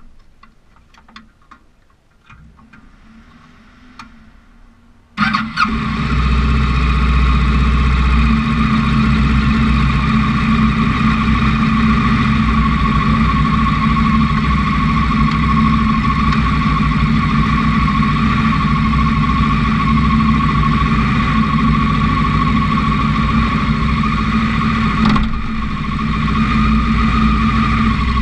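A few faint clicks, then about five seconds in a race car's engine starts suddenly, heard from inside the cockpit. It then runs loud and steady at an even pitch, dipping briefly near the end.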